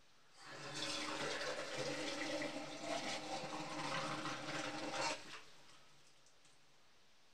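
Water running for about five seconds, starting about half a second in and stopping abruptly.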